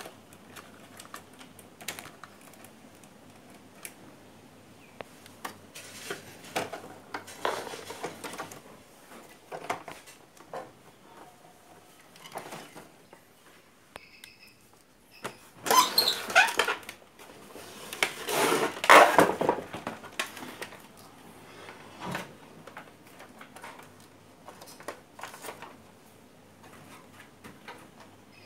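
Hands working on an open CRT television's chassis and wiring: scattered clicks, knocks and clatter of wires, metal and plastic parts being handled, with two louder spells of handling noise about halfway through.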